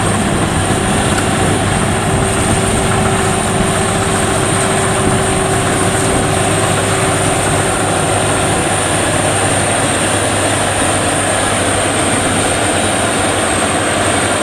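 WD102 Pro rice combine harvester running steadily while harvesting rice: a loud, even mechanical din from its engine and threshing gear, with a steady high whine.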